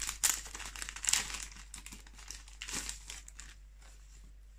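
Crinkling and rustling of a small card packet and its plastic bag being handled and opened as luminous silicone tubing is pulled out. The crackles are irregular, busiest in the first three seconds or so, and die down after that.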